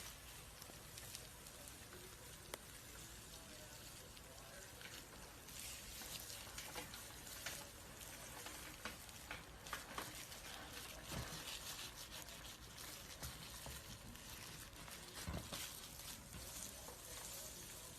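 Faint crackling and rustling of dry snake skin as it is shed: many small irregular clicks over a soft hiss, busier in the middle and again near the end.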